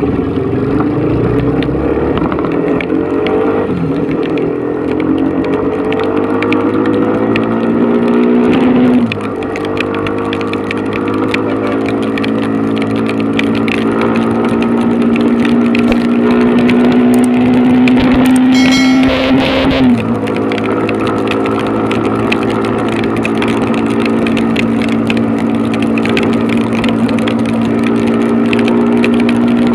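Motorcycle engine running under way, its pitch climbing steadily and dropping sharply a few times, over steady rain and wind noise.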